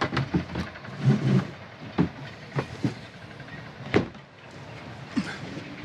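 Gear being handled: irregular knocks and rustling, with a sharper knock about four seconds in, as preventer lines are got out.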